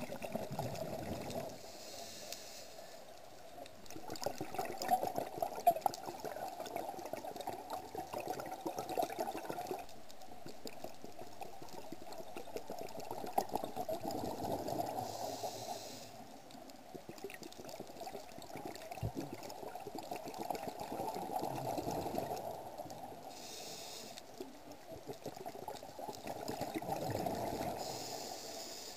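Underwater breathing sounds of a scuba diver: rushing, bubbly bursts of exhaled air from the regulator, about five of them a few seconds apart.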